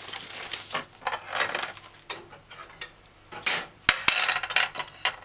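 Ingredients being handled and set down on a kitchen counter: irregular rustling with scattered clicks as items are placed onto a plate, two sharp clicks about four seconds in.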